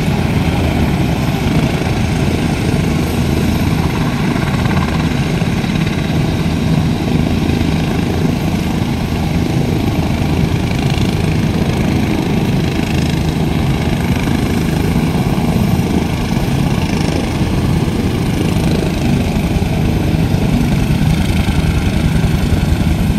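AH-64 Apache attack helicopters running on the ground: a loud, steady rumble of twin turboshaft engines and turning rotors with a fast, even pulsing. It grows slightly louder near the end.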